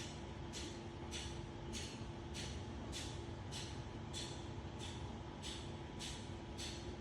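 Short scraping strokes repeated at an even pace, about one every 0.6 s, over a steady low hum.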